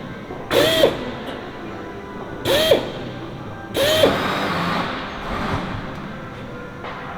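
Drill run in three short bursts, spinning up and back down each time, drilling rivet holes through the fin skin; the third burst trails off with a longer hiss.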